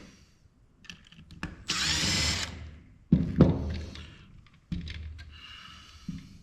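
Cordless power screwdriver (or drill) running in a short burst about two seconds in, its motor whine rising as it spins up. A sharp knock follows a second later, then the tool runs again more quietly for about a second and a half.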